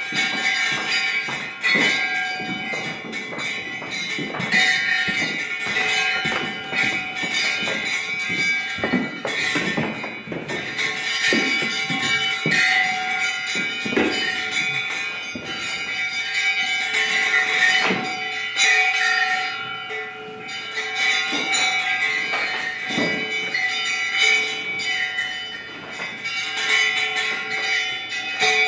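Live music of ringing bells and clattering percussion: several steady bell tones sounding together, broken by frequent irregular knocks and clanks.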